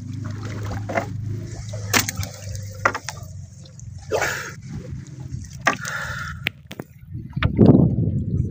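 Shallow water sloshing and splashing, with scattered knocks and clicks and a louder splash about seven and a half seconds in.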